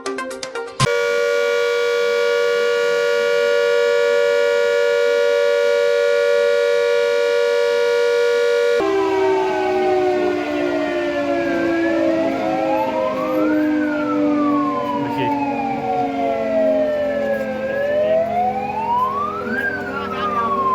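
Civil-defence warning siren sounding for a mock drill: a steady held note for about eight seconds, then a slow wail that rises and falls, peaking roughly every six seconds.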